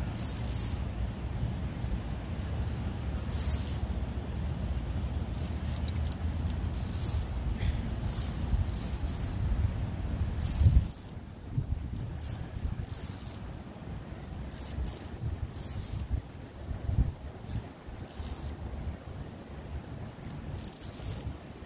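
Wind buffeting the microphone as a low rumble that eases about halfway through. Over it come short bursts of high, rattling clicks every second or two.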